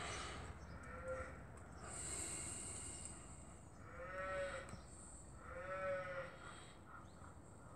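Three short, pitched animal calls, each about half a second long and arched in pitch: a faint one about a second in, then two louder ones about four and six seconds in, over a steady low rumble.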